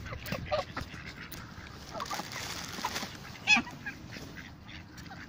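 A flock of domestic geese and mallard ducks calling as they feed, with a few short honks and quacks and one loud call about three and a half seconds in.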